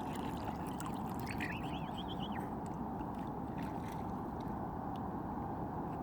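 Steady wash of water and wind, with a short run of quick, arched high bird notes about a second in.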